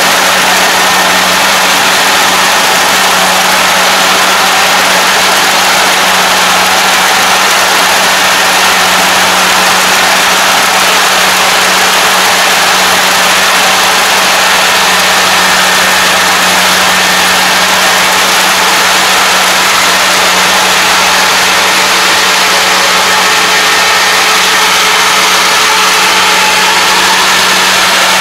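ARN460 crawler combine harvester running steadily as it cuts and threshes standing rice: a loud, constant machine drone with a steady low hum.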